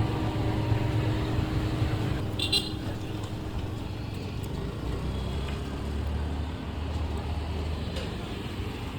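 A motor vehicle engine running with a low, steady rumble, and a brief high chirp about two and a half seconds in.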